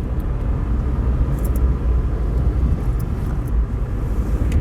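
Vehicle driving: a steady low rumble of engine and tyres, with a few faint ticks.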